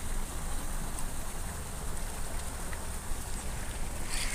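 Small waves lapping and fizzing against concrete blocks at the water's edge, with wind rumbling on the microphone. About four seconds in there is a short scratchy rasp.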